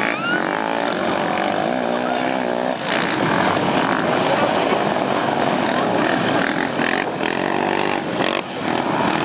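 A pack of off-road quad bikes and motocross bikes revving hard as they climb a sand dune, many engines overlapping, their pitches rising and falling as the throttles open and close.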